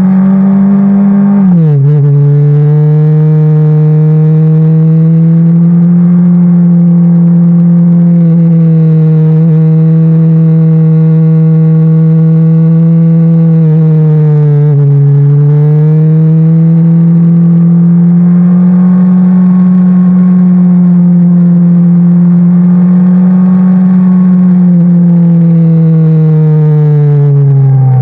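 Motorcycle engine running under way, heard from the rider's seat: a steady engine note whose revs drop sharply and recover about a second and a half in, dip again about halfway and climb back, then fall away near the end.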